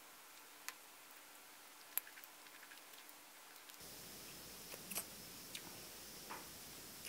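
Faint eating sounds from a person eating chicken biryani by hand: scattered small mouth clicks and smacks, the sharpest about two seconds in and a few more around five seconds, over a low hiss.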